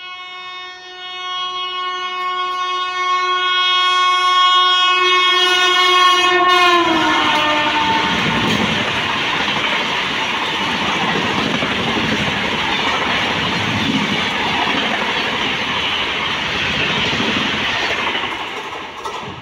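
A passenger train's locomotive horn sounds continuously as the train approaches, and its pitch drops about seven seconds in as the locomotive passes. The coaches then clatter past at speed for about ten seconds before the noise fades near the end.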